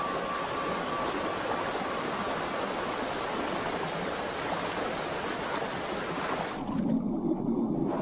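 Rushing stream water, a steady even hiss. Near the end the hiss thins out and a lower, duller wash of water remains.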